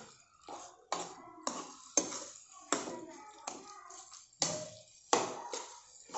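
Metal spoon scraping and knocking against a pan while a thick vegetable mash of potato and peas is stirred, with a sharp scrape or tap every half second to second.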